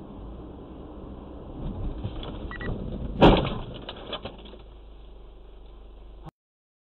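Car cabin noise recorded by a dashcam, with a short beep and then a single sudden loud bang a little over three seconds in as a white car ends up across the front of the car: a collision impact, followed by a few smaller knocks. The sound cuts off about six seconds in.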